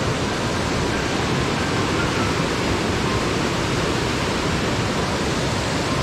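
Waterfall on Dingmans Creek rushing, a steady, even wash of falling water at constant strength.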